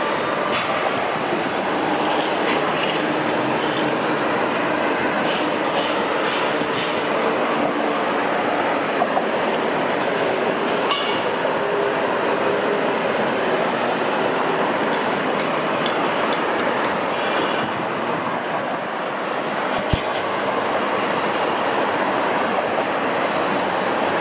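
Steady din of a city construction site: a constant rush of background noise with faint metal clinks, and one short knock about twenty seconds in.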